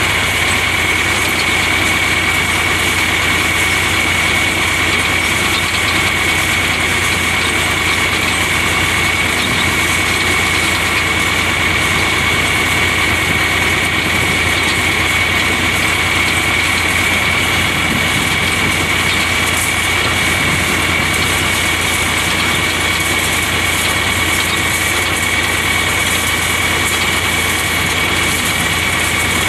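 Tractor engine running steadily at a constant speed, with a steady high-pitched whine over its low drone.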